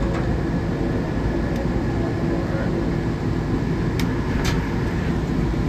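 Newark AirTrain monorail car running, heard from inside the car as it pulls into a station: a steady low rumble with a faint steady whine, and two sharp clicks about half a second apart near the end.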